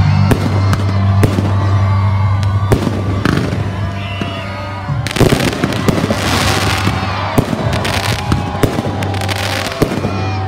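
Aerial fireworks going off: repeated sharp bangs, with a dense spell of crackling about five to seven seconds in, over steady background music.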